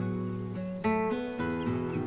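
Background music on acoustic guitar: picked notes ringing on, with a new chord struck a little under a second in.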